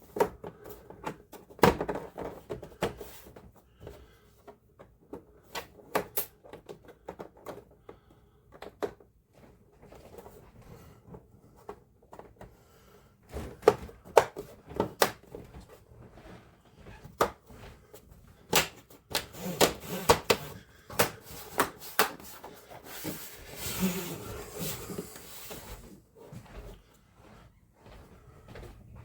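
Irregular clicks, knocks and snaps of plastic as a computer monitor's housing and parts are handled, with a few seconds of rustling about 23 seconds in.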